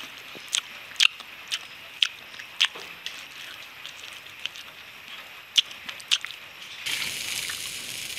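Close-miked wet chewing and lip smacking while eating grilled meat, with sharp mouth clicks every half second to a second. About seven seconds in, a steady hiss takes over.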